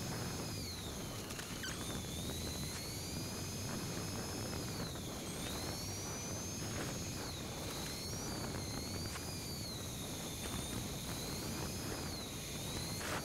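Heybike Ranger S electric bike under way: a high motor whine that rises and falls in pitch as the bike speeds up and slows. It sits over a steady rush of wind and tyres on pavement, with a few light clicks.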